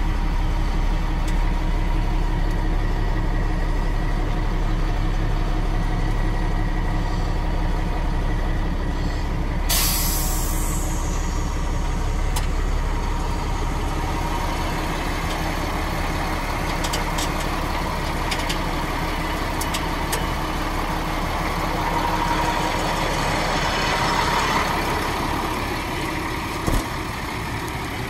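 A Sterling heavy truck's diesel engine idling steadily in neutral. About ten seconds in, a sudden hiss of compressed air is released and fades over a second or two.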